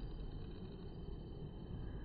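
Faint, steady outdoor background noise with no distinct sound standing out.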